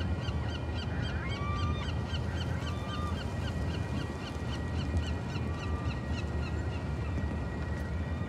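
Railroad crossing bell ringing rapidly and evenly, about three strokes a second, over a steady low rumble, with a few drawn-out high squeals.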